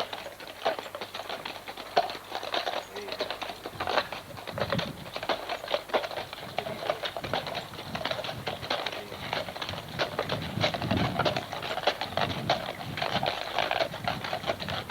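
Working horses moving, hooves clopping amid a dense run of small clicks and knocks.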